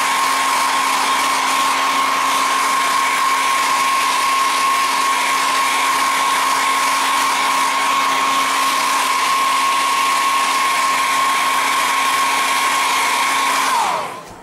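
Handheld hair dryer blowing with a steady rushing of air and a constant fan-motor whine. Near the end it is switched off, and the whine falls in pitch as the motor spins down.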